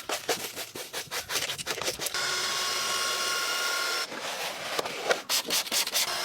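Rapid back-and-forth scrubbing strokes, several a second, typical of a brush working a surface during car detailing. They break off for about two seconds in the middle for a steady hissing whine, then resume.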